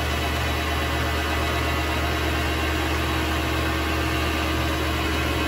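Vevor MX 400 mini lathe running steadily, its motor and headstock turning the chuck with a low hum and an even hiss over it. A faint steady tone comes in about halfway through.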